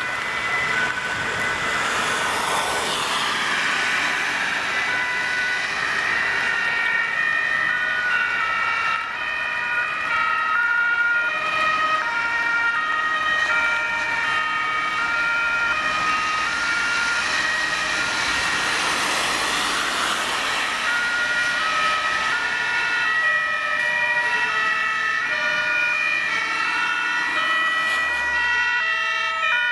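Several German two-tone fire service sirens (Martinshorn) sounding at once and out of step with each other, from a convoy of a command car, an HLF 20 rescue engine and a CBRN reconnaissance vehicle on an emergency run. Each siren switches between its two pitches about once a second, and the rush of passing vehicles swells about three seconds in and again around twenty seconds.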